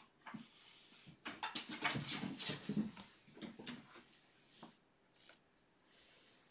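Kittens making small cries, in a dense run lasting about two seconds starting about a second in, then a few fainter sounds.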